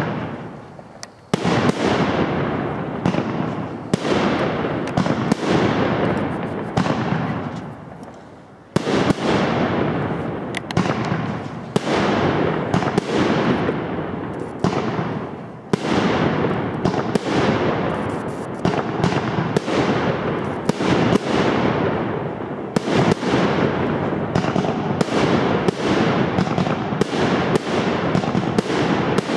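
Aerial fireworks display: shells and batteries firing and bursting overhead in a rapid series of sharp bangs, several a second. There is a brief lull about eight seconds in, then a denser barrage.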